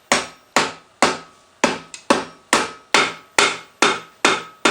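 Steady hammer blows on a Mazda 13B rotary engine's rear iron, about two a second, to knock it loose where it is stuck fast to the intermediate iron. Each blow is sharp and dies away quickly.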